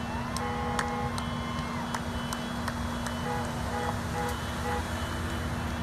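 Outdoor traffic sound of a police-escorted vehicle procession, played back as a news clip over a video call: vehicles running, with a siren tone early on and a run of short horn honks about halfway through.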